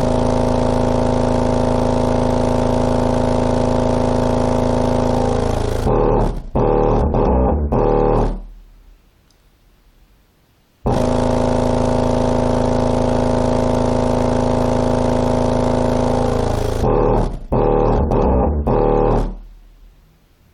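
Unenclosed JL Audio 10W7 subwoofer driven hard with a low bass signal, sounding heavily distorted: a sustained bass note of about six seconds, then a few short choppy hits that fade out. After a pause of about two seconds the same pattern repeats.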